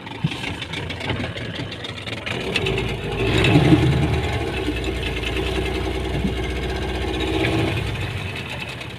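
Suzuki outboard motor running, growing louder about three seconds in, holding steady, then quietening near the end.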